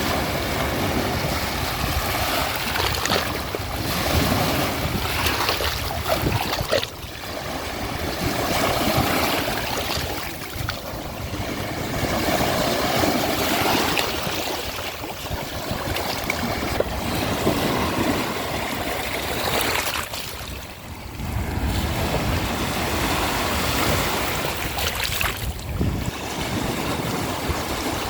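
Ocean waves breaking and washing up a shore, a steady rush of surf that swells and eases every few seconds, with brief lulls between sets.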